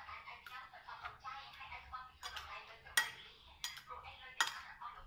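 Metal spoon clinking and scraping against a ceramic plate while food is mixed, with several sharp clinks, the loudest about three seconds in.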